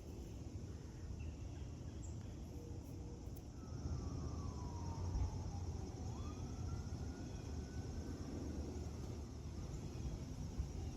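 Steady low outdoor rumble with a faint siren-like wail that falls in pitch and then rises and holds, a few seconds in.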